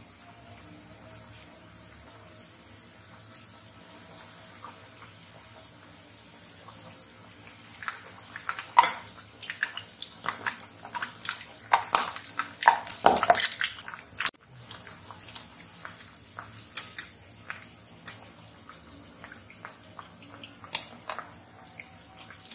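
Hot oil sizzling around sweet jaggery-and-wheat-flour patties as they deep-fry in a wok. A soft steady sizzle for the first several seconds gives way, about eight seconds in, to a stretch of loud crackling and spattering pops, then it settles back to a lighter crackle.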